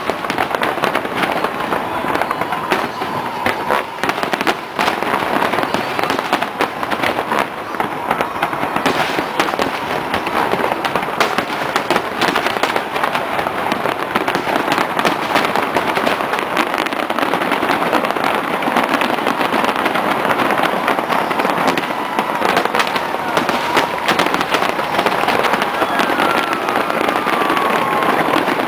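Aerial fireworks display in a dense, continuous barrage: rapid overlapping bangs and crackling with no break.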